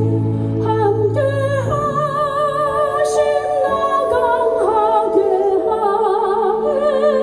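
Church worship music: a singer holding long notes with vibrato over sustained keyboard chords.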